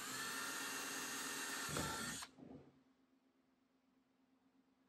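Cordless drill spinning up and drilling a hole in a plastic kayak deck, a steady motor whine for about two seconds with a rougher, lower grinding just before it stops.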